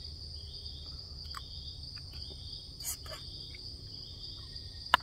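Insect chorus: a steady high-pitched shrill, with a few scattered clicks, the sharpest just before the end.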